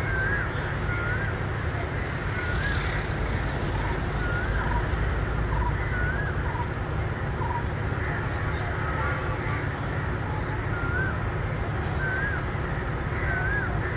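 Steady low rumble of a standing diesel passenger train, with a bird giving short warbled calls about once a second.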